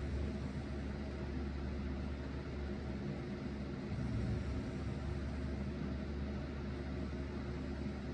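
Electric fan running with a steady hum, and a sleeping person's snoring swelling low about every four seconds.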